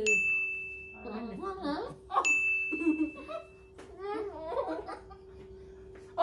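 Two ding sound effects about two seconds apart, each a bright ringing tone lasting about a second and a half, over the muffled, mouth-full voices and laughter of people with marshmallows stuffed in their cheeks.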